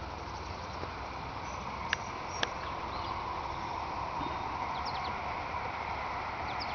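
Outdoor ambience: a steady hiss with a few short, high bird chirps, and two sharp clicks about half a second apart, about two seconds in.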